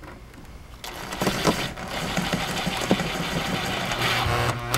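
Cordless Makita drill/driver driving a screw through a vehicle headliner into a wooden spacer block. The motor starts about a second in and runs steadily.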